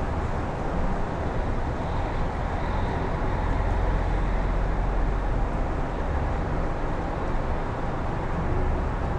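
Strong wind blowing steadily in a full rush with a deep rumble underneath, and a faint high whistle for a second or two a few seconds in.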